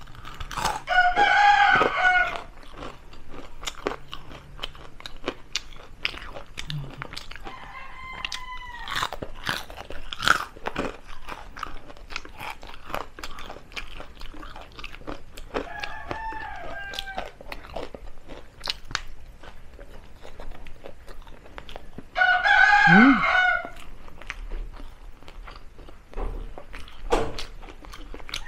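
Close-miked crunching and chewing of crispy deep-fried chicken feet, bones and all. A rooster crows four times in the background, loudest about a second in and again near 23 seconds, fainter around 8 and 16 seconds.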